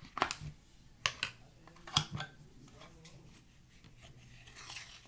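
Sharp clicks and crunches from eating a mouthful of dry cornstarch, three quick groups about a second apart, followed by a fainter rustle near the end.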